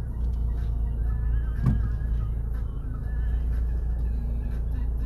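Steady low rumble of a car driving, heard from inside the cabin, with a single sharp knock about a second and a half in.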